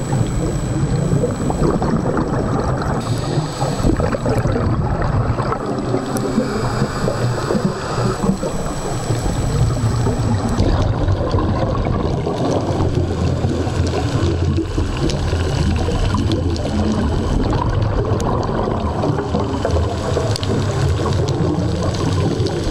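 Underwater sound picked up by a camera in its housing: a steady low wash with uneven gurgling from a scuba diver's exhaled bubbles.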